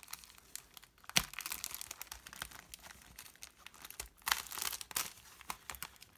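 Clear plastic wrapping crinkling as hands peel it open and pull it off a stack of cardstock, in irregular crackles. There is a sharp snap about a second in, and a louder run of crinkling about four seconds in.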